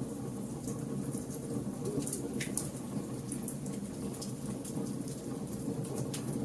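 Wood campfire burning: a steady low rumble of flames with frequent sharp crackles and pops from the burning logs, and a short falling hiss about two and a half seconds in.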